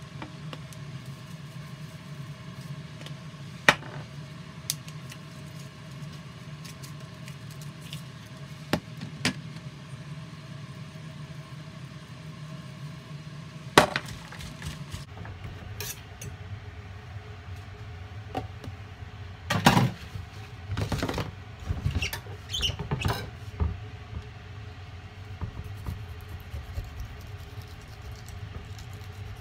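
Food-preparation handling sounds: scattered knocks and clicks of a plastic tub and utensils against a wooden cutting board over a steady low hum, with a busier run of knocks about two-thirds of the way through.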